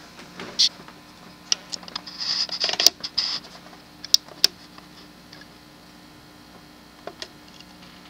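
Camera being repositioned by hand to zoom in: scattered small clicks and creaks, with a short scraping rustle about two to three seconds in and a few more light clicks later.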